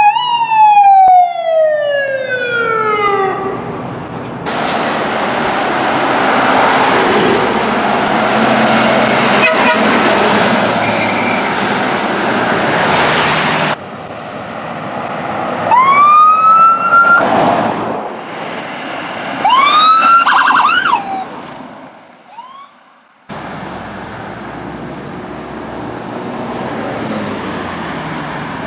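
Emergency-vehicle sirens on responding fire department vehicles. A siren's wail falls steadily in pitch and fades over the first few seconds. A stretch of loud, even rushing noise follows, then two short rising siren whoops a few seconds apart, and then the steady running noise of an approaching heavy truck.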